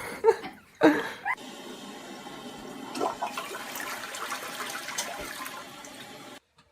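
Water rushing steadily for several seconds, then cutting off suddenly.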